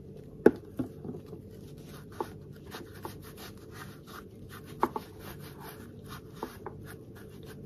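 Microfibre cloth rubbing and buffing Carnauba creme into a leather sheath: soft, quickly repeated rubbing strokes, with a few sharp taps, the loudest about half a second in.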